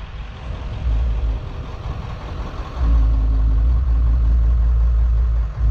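Low rumble of a car's engine and road noise while driving. It grows louder about three seconds in, with a steady hum added.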